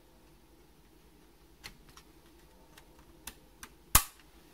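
A few small clicks and taps from handling watercolour paint tubes and a palette, then one much louder, sharp click near the end.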